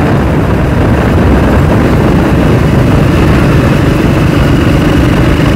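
Motorcycle riding heard through a helmet-mounted phone microphone: loud, steady wind rumble over the running engine.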